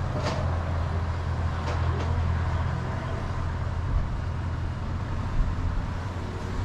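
Steady low rumble of road traffic, with a couple of faint ticks in the first two seconds.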